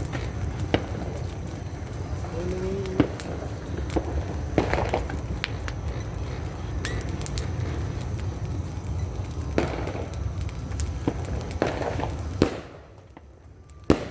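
New Year's firecrackers popping at irregular intervals, some sharp and close, others fainter, over a steady low background din that drops away suddenly near the end.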